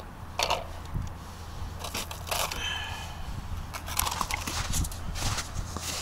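Irregular crunching and scraping on snow-covered ice, with wind rumbling on the microphone.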